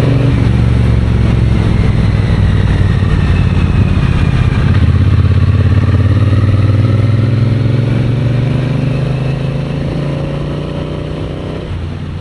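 Triumph Bonneville parallel-twin engine running under way, its note rising steadily as the bike accelerates, then dropping near the end as the throttle is closed and it gets quieter.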